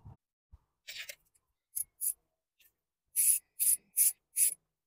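Olsa Tools ratchet on a spark plug socket and extension, working a spark plug loose: a few light clicks as the socket goes on, then four short bursts of ratchet clicking in quick succession near the end.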